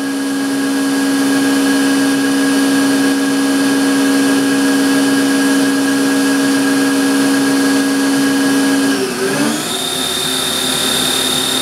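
Spindle of a Sharnoa HPM30 vertical machining center running steadily at 4,000 rpm with a steady whine. About nine seconds in, the sound shifts as the spindle changes speed, then settles into a new steady whine with a higher tone. The machine is cold from sitting idle, which the owner says makes it run a little louder until it warms up.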